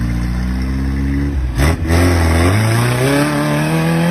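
Off-road buggy's engine revving hard under load as it climbs a steep dirt bank, its pitch climbing steadily through the second half. There is a brief loud burst of noise about one and a half seconds in.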